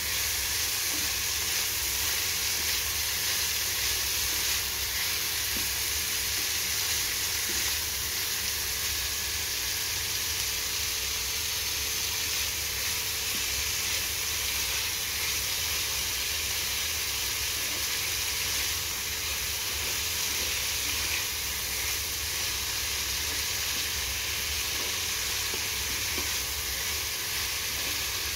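Sliced bitter gourd, tomato and onion stir-frying in oil in a pan: a steady sizzling hiss.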